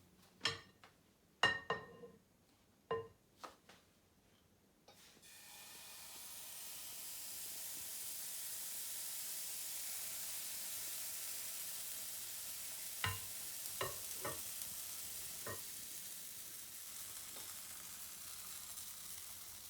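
A few sharp clinks, then pancake batter sizzling steadily in a hot buttered pan from about five seconds in, with a few more light clinks partway through.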